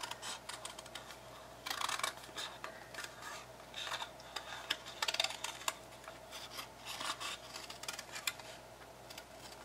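Scissors cutting through thin, lightweight cardboard: a string of irregular snips and rasping cuts as the blades work around a curved outline.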